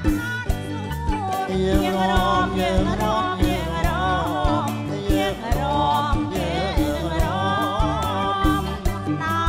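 A man and a woman singing a Khmer romvong dance song as a duet, with vibrato in their voices, over a band playing a steady dance beat.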